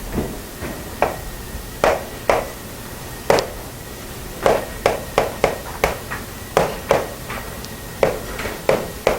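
A series of sharp, irregular taps, about twenty of them, some in quick pairs and more frequent in the second half.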